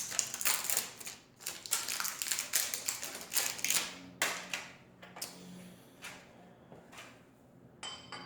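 Small metal parts and hardware being handled: a quick, irregular run of clicks and taps that thins out after about four seconds.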